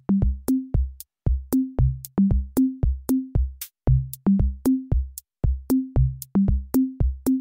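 Electronic intro music: a drum-machine beat of punchy kick drums and short synth bass notes in a steady rhythm, breaking off briefly twice.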